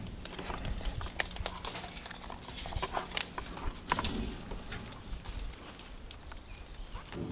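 Footsteps: irregular knocks, clicks and scuffs of shoes, loudest about three and four seconds in.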